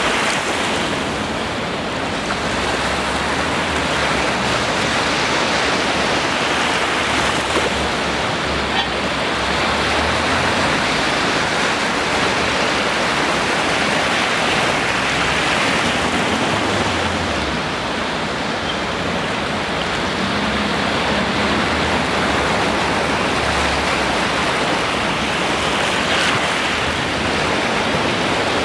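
Ocean surf: a continuous wash of breaking waves, swelling and easing slowly.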